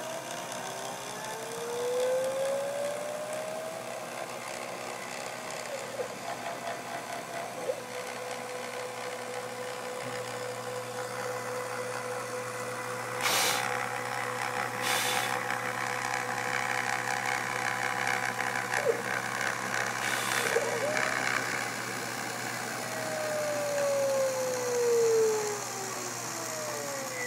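Hobby CNC router cutting acrylic with a small bit: the spindle runs steadily, and the stepper motors whine in rising and falling glides as the axes speed up and slow down along the cut. A few sharp clicks come in the middle.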